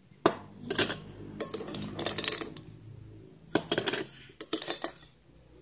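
Ice cubes clinking and clattering as they are dropped by hand into a tumbler on top of other ice, in several short bunches of sharp clicks a second or so apart.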